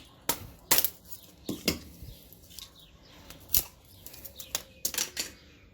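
Wooden baton striking the spine of a slip-joint folding knife again and again, driving the blade down through a small stick: sharp knocks at an uneven pace, about two a second.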